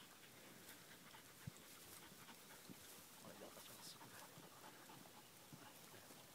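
Near silence, with a dog's faint panting.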